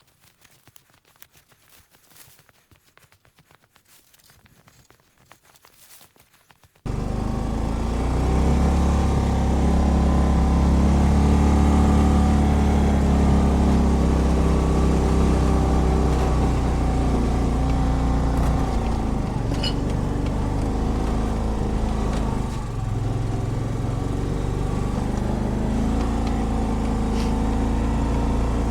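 Faint rustling, then suddenly about seven seconds in a Kawasaki Mule utility vehicle's engine running loudly and steadily, easing off briefly near the end before picking up again.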